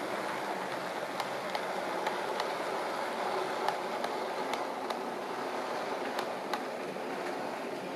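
Model railway train running past on the layout: a steady rolling rumble of the coaches' wheels on the track, with scattered irregular clicks as the wheels cross the rail joints.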